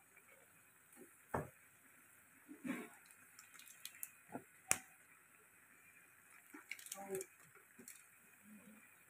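Chicken pieces boiling in a pan of water and oil: a faint steady bubbling hiss with scattered sharp pops and spits every second or two.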